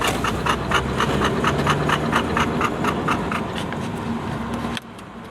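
Bernese mountain dog panting rapidly, about five breaths a second, over a steady engine hum; the sound cuts off abruptly near the end.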